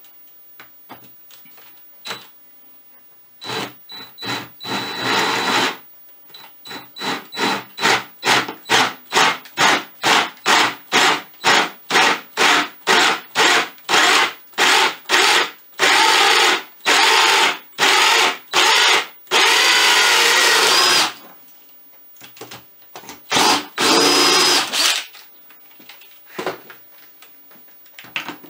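Cordless drill boring through a wooden board with an old Forstner bit, fed slowly because the bit runs hot. The trigger is pulsed in short bursts, about two a second, before the drill runs steadily for several seconds and then once more briefly near the end.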